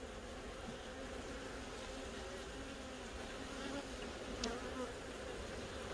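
Honeybee colony buzzing steadily from an open hive box with its frames exposed. A single light click sounds about four and a half seconds in.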